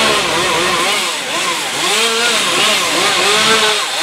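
Husqvarna chainsaw cutting tree limbs, its engine revving up and down over and over.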